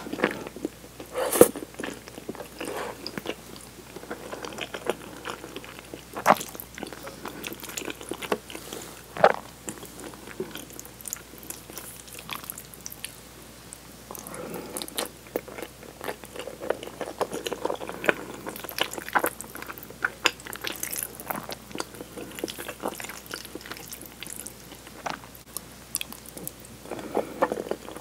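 Close-miked eating of tomato cream spaghetti: wet chewing and slurping of noodles from a fork, with scattered sharp clicks, the loudest about a second and a half, six and nine seconds in.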